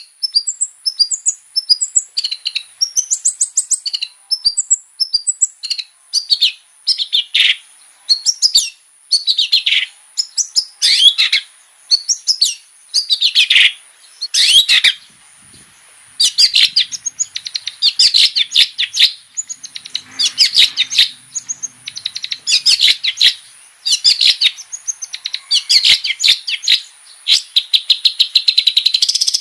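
Long-tailed shrike (cendet) singing loudly and without letup, a fast, varied stream of sharp chirps, rapid trills and harsh bursts in quick phrases with short gaps between them.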